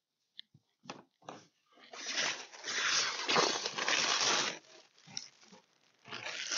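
Thin plastic protective film crinkling and rustling as it is peeled off a polycarbonate rear windshield and bunched up by hand. It goes in a few short crackles, then a long stretch of a couple of seconds, then a shorter one near the end.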